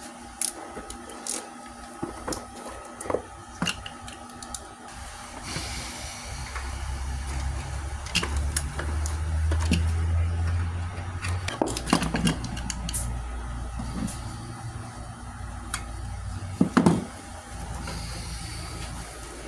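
Scattered clicks and knocks of work on a DC Audio M3 15-inch subwoofer being taken apart, with a low steady hum through the middle and a couple of sharper knocks near the end.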